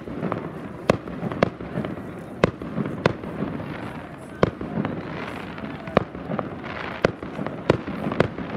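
Aerial fireworks bursting overhead: a dozen or so sharp bangs at uneven intervals, some close together and some a second or more apart.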